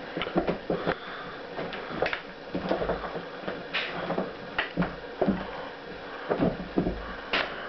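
Irregular thumps, scuffs and clicks as a cat leaps, twists and lands on carpet while chasing a wand toy, mixed with knocks from the hand-held camera being moved about.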